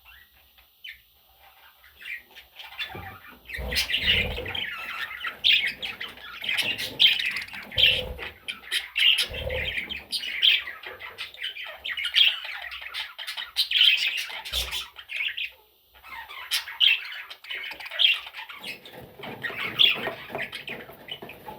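Budgerigar chattering and squawking in busy, rapid runs, falling silent briefly about two-thirds of the way through, with a few soft low thumps.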